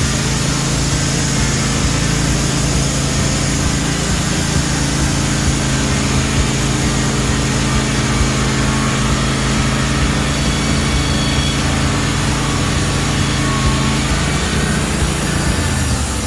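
Wood-Mizer LT15 band sawmill running steadily while sawing, its engine note held even under a hiss from the band blade. Near the end the engine note shifts.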